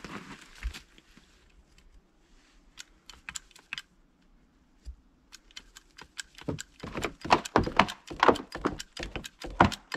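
Red hydraulic hand pump being stroked to drive a ram jacking up a cabin floor frame: a few scattered clicks at first, then from about two-thirds of the way in a quick, irregular run of loud clacks and knocks from the pump handle and the strained frame.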